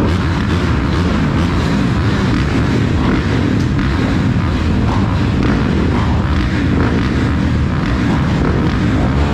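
Motocross dirt bike engine running steadily, a loud low rumble with no sharp revs or pauses.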